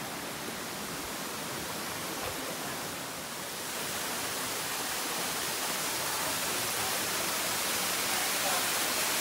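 Steady rush of falling water from a mountain stream, growing louder from about a third of the way in.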